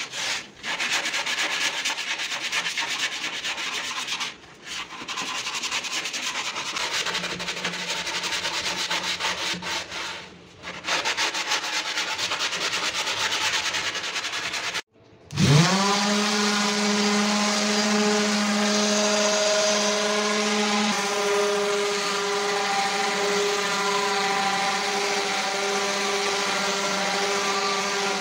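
Wood being sanded for about fifteen seconds, stopping briefly three times. After a short silence, an electric power tool's motor spins up and runs at a steady pitch.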